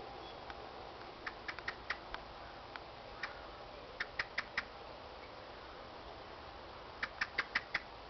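Common blackbird giving sharp, clicky "chink" calls, mostly in quick runs of four or five, with a few single notes between.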